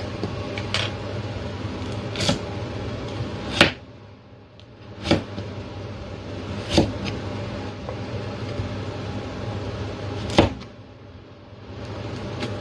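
Chinese cleaver cutting a carrot into sticks on a plastic cutting board: several sharp knocks as the blade hits the board, one every second or two, over a steady low hum.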